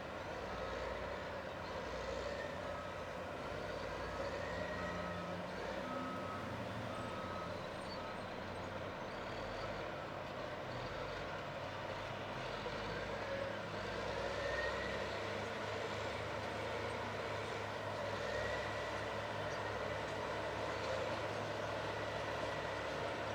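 Caterpillar D8T bulldozer's diesel engine running steadily under load, with a backup alarm beeping at an even pace that stops about eight seconds in.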